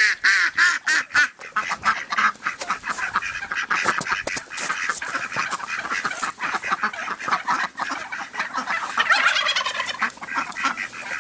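A flock of domestic ducks quacking, many birds calling over one another in a steady chorus of short, rapid calls.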